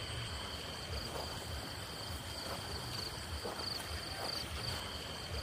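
Crickets chirring steadily: a high pulsing trill with a second steady high tone under it, with a few faint soft thuds lower down.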